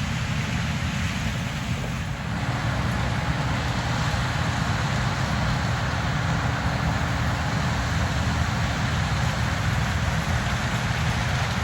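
Combine harvester running steadily while harvesting corn: a continuous low engine drone under a noisy hiss of machinery and crop. About two seconds in, a steady hum joins it.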